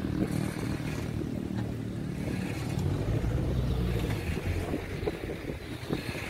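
A car driving along the road, its low engine note slowly falling as it moves off, over wind rumbling on the microphone.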